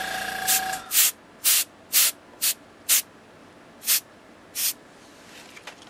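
Copic airbrush system spraying pink Copic marker ink in short puffs of air, about eight bursts roughly half a second apart, spaced wider near the end. The airbrush compressor's steady hum cuts off about a second in.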